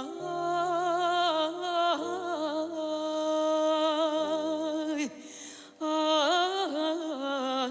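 A woman singing long, ornamented notes with heavy vibrato, without clear words, over sustained low accompaniment notes. The line breaks off briefly about five seconds in with a soft breath, then resumes.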